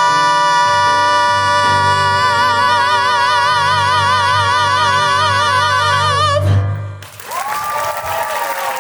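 A soprano holds one long high note over piano, its vibrato widening as it goes, while the piano's low notes step beneath it. About six and a half seconds in it cuts off abruptly and gives way to other singing over a noisy haze.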